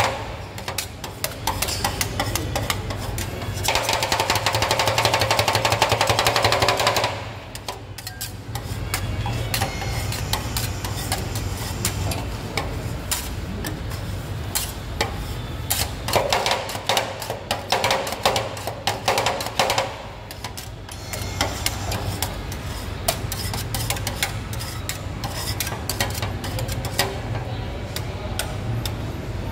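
Two steel spatulas chopping and scraping ice-cream mix on a stainless-steel cold plate: a fast, irregular clatter of metal-on-metal strikes that grows denser and louder twice. A steady low hum runs underneath.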